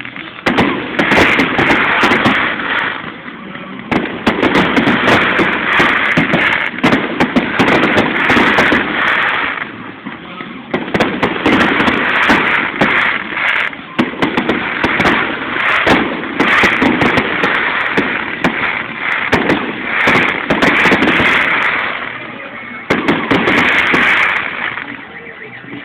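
Fireworks display: dense, rapid bangs and crackling going off in waves, easing off briefly every few seconds before the next volley.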